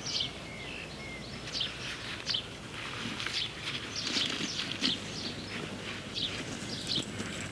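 Small birds chirping and singing in short, high calls, repeated many times, over a soft rustle of compost being pressed around a potted plant by gloved hands.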